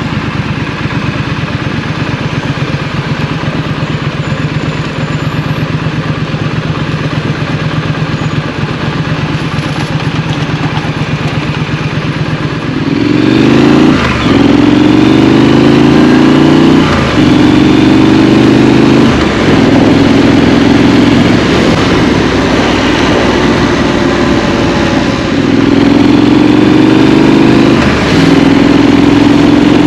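Scrambler motorcycle engine idling steadily, then about halfway through pulling away and revving up through the gears: the note climbs, drops at each shift and climbs again several times.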